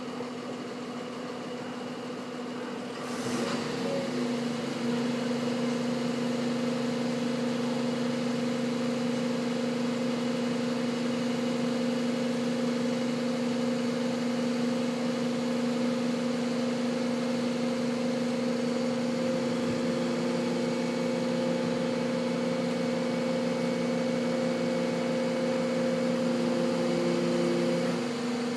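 Fire brigade aerial ladder truck's engine running at a steady speed, a constant hum that grows louder about three seconds in and then holds.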